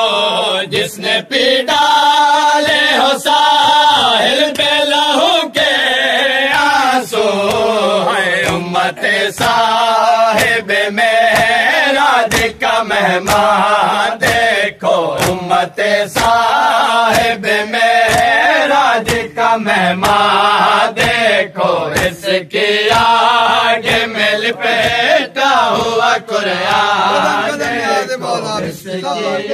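Men chanting a noha, a Shia lament, together in unison. Hand slaps on chests (matam) strike the beat about once a second.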